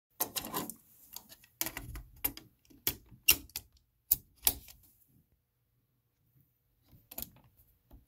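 Hard plastic clicks and clatter from handling a cassette into the open tape compartment of a Marantz PMD430 portable cassette recorder, a quick run of sharp clicks over the first five seconds. A short pair of clicks comes near the end as the cassette door is pushed shut.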